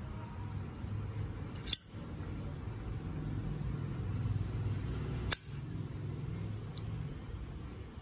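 Zippo windproof lighter's hinged lid flipped open with a sharp metallic click that rings briefly, then snapped shut with a second sharp click about three and a half seconds later. A few faint taps of metal handling come between.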